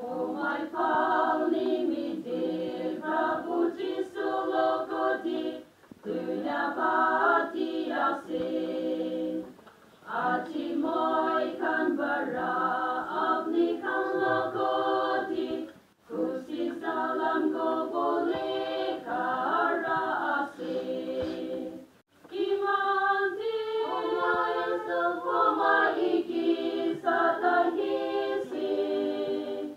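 A small group of women singing a hymn together unaccompanied, in phrases broken by short pauses every few seconds.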